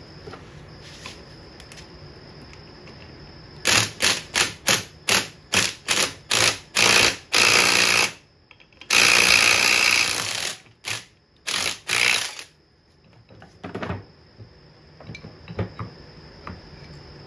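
Impact gun hammering in a string of short trigger bursts, one longer run of about a second and a half, then a few more short bursts, stopping about twelve seconds in. It is driving the center bolt of a flywheel puller against the crankshaft to pop the flywheel off a 1968 Mercury 650 outboard.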